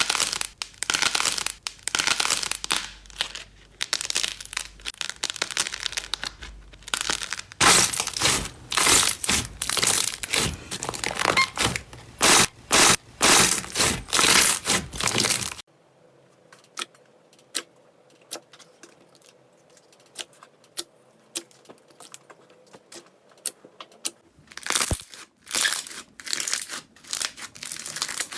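Slime being squeezed, poked and stretched by hand: a rapid string of loud, noisy squishes and pops. About halfway through it turns quiet, with only sparse small clicks, then picks up again near the end.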